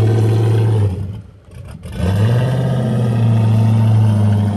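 Chevrolet Silverado pickup's engine and exhaust running with a deep, steady, loud rumble. The sound drops away for a moment about a second in, then comes back with a slight rise in pitch as the truck pulls forward.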